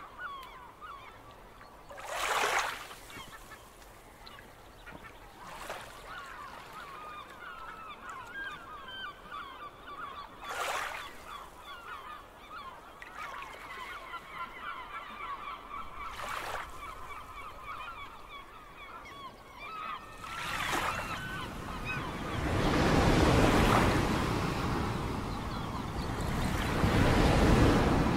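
Sea waves washing over shoreline rocks, with brief splashes every few seconds, under a flock of birds calling over and over for most of the stretch. Near the end two bigger waves break and surge loudly over the rocks, drowning out the calls.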